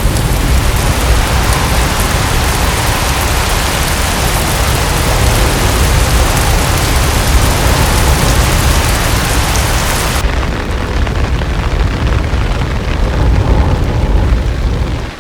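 Heavy typhoon rain, a dense hiss over a deep, steady rumble. The rain hiss cuts off suddenly about ten seconds in, leaving the rumble.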